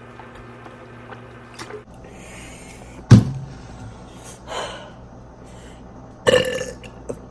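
A person burping: two loud burps, about three seconds in and again about a second before the end, with a softer sound between them.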